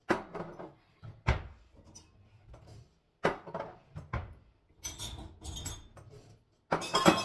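Dishes and glasses being set onto the shelves of a kitchen wall cabinet: a few separate knocks, then a louder run of clinking near the end.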